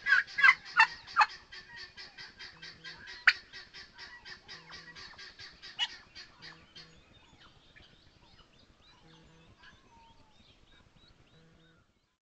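A turkey calling close by in a rapid series of short notes, about five a second. The notes are loud for the first second or so, then fade out gradually over the next ten seconds. Two sharp clicks stand out, about three and six seconds in.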